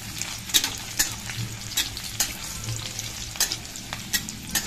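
Chopped garlic and bay leaves sizzling in hot mustard oil in a steel kadai. A steel spatula stirs them, scraping and tapping sharply against the pan at irregular moments.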